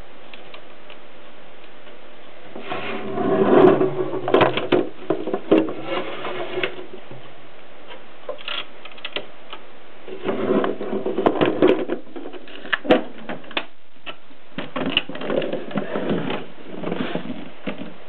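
Mechanism of a 1970s Brillant portable typewriter being worked by hand: three bouts of rattling and sharp clicks with a low rumble, the first the loudest.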